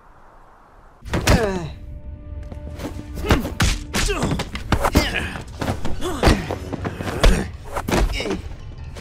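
Music with a quick run of thuds and hits, which begins suddenly about a second in after a faint hiss.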